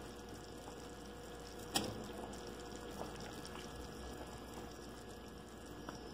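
Pot of potato soup with angel hair pasta simmering, a steady soft bubbling, with one sharp click a little under two seconds in and a couple of faint ticks later.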